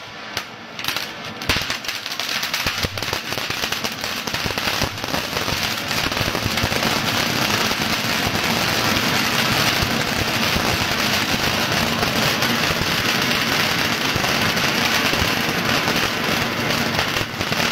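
Ground fountain firework spraying sparks: a steady hiss dense with small crackles, growing louder over the first few seconds and then holding even.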